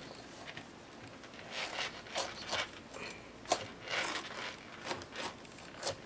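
Kitchen knife cutting into the rind of a whole raw jackfruit: a series of short rasping strokes, with a sharper click about three and a half seconds in.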